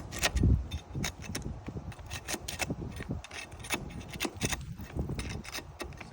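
Asphalt shingles being handled and lifted, with irregular scraping, crackling and clicking, and a heavier thump about half a second in.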